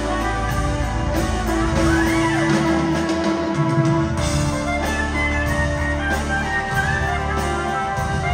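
A live progressive rock band playing, with electric guitar, bass guitar, keyboards and drums, heard from the audience seats of a theatre. Sustained notes ring over the bass, and a note bends up and back down about two seconds in.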